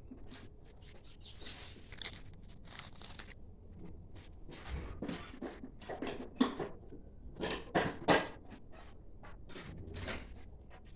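Irregular clicks, scrapes and knocks of hand work on metal parts, with the loudest knocks about six and a half and eight seconds in.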